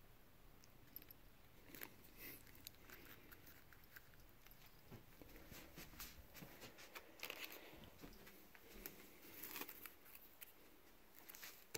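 Faint handling noise: scattered rustles and short clicks of hands and toys moving over a quilted fabric cover, starting about two seconds in.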